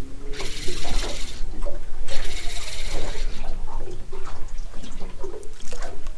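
Three bursts of rushing, splashing water, about a second each, in the first three seconds, over a steady low rumble, followed by a few faint knocks.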